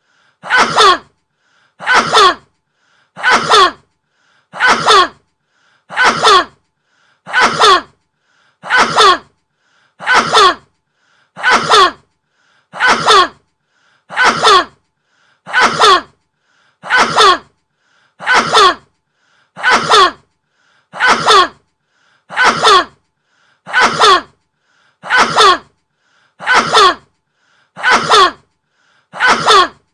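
A man's sneeze repeated over and over, about twenty times, at an even pace of roughly one every 1.4 seconds. Each sneeze is identical, the same short recording looped.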